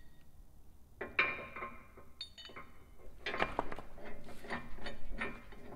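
Steel D-ring shackle and its pin clinking and rattling against the steel bumper's mount as it is fitted by hand: a couple of ringing metallic clinks about one and two seconds in, then a run of quick rattling clicks in the second half.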